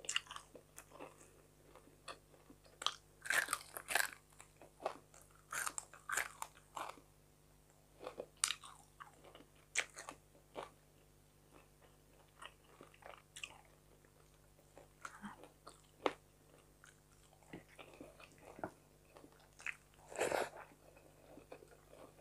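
A person chewing fried fish and rice close to the microphone: irregular wet mouth smacks and crunches, with a quieter stretch in the middle.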